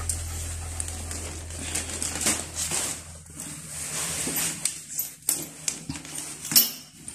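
Scattered clicks and rustles of a strap-and-buckle dog harness being handled on a tile floor while the dog steps about close by. The sharpest click comes near the end as the harness is picked up. Background music fades out in the first couple of seconds.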